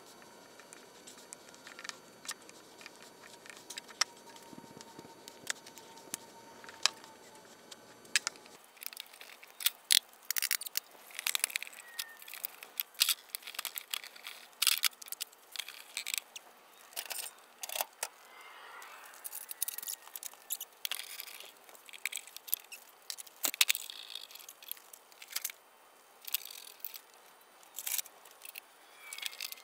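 A brush scraping wood glue across a pine board. After about eight seconds comes a long run of sharp clicks and clacks as metal bar clamps and trigger clamps are fitted and tightened across the glued boards.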